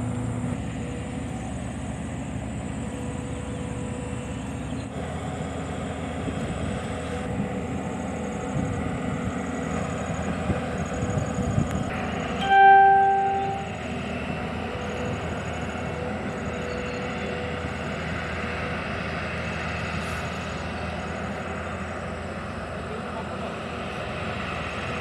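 Excavator's diesel engine running steadily while working in water. About halfway through, a horn sounds once for about a second.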